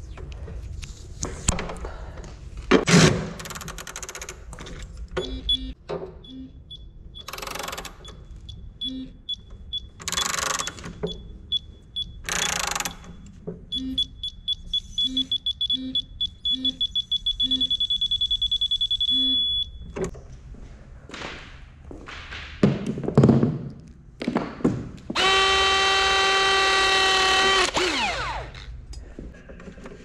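Milwaukee digital torque wrench beeping faster and faster as the lug nears the set torque, the beeps merging into a steady tone when the target is reached. Earlier, electrical tape rips off the roll a few times. Near the end there are a couple of low thuds and a loud buzz about three seconds long that drops in pitch as it stops.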